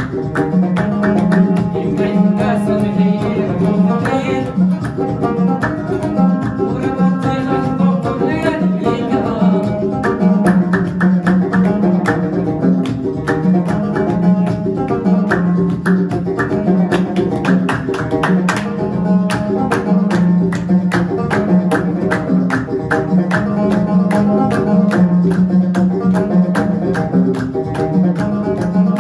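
Banjo playing a Tashelhit (Amazigh) tune in quick plucked notes, with hands clapping along to the beat.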